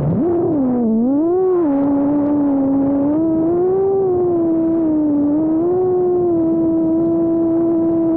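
Brushless motors of a 5-inch FPV quadcopter (Ummagawd Aerolite 2004 1600kV spinning HQ 5030 tri-blade props), a loud whine heard from the onboard camera. The pitch swings up and down with throttle punches for the first couple of seconds, then holds steady at cruising throttle, dipping slightly near the end.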